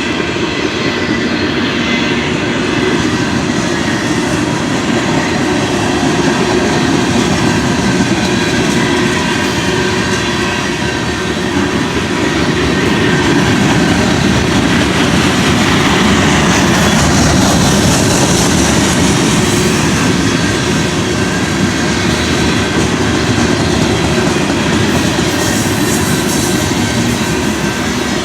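Freight cars of a long mixed freight train rolling past, wheels clattering over the rail joints with a steady rumble and thin, steady high ringing tones from the wheels.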